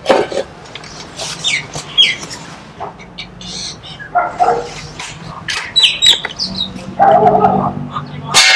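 Birds chirping in the background. Near the end, a single Benjamin air rifle shot is fired point-blank into a steel plate: a sharp crack followed by the plate ringing for about a second as the pellet punches through it.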